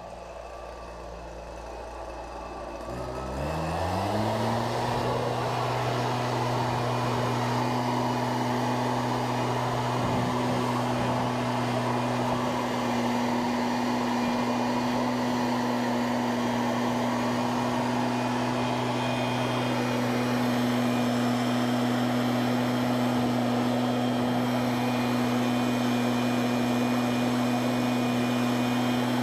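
A powered machine starts up about three seconds in. Its pitch rises for a second or two, then it runs at a steady speed with a steady hum and a rushing, fan-like noise.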